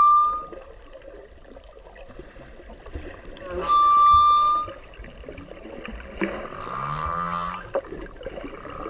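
Whale calls: a loud, high, steady-pitched call with overtones at the start, the same call again about four seconds in, then from about six seconds in lower calls whose pitch sweeps and curves.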